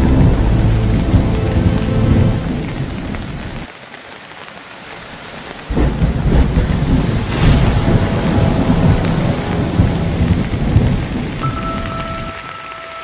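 Loud rushing water noise with a deep rumble, starting abruptly about six seconds in, with a sharp crack soon after. Background music fades out in the first couple of seconds.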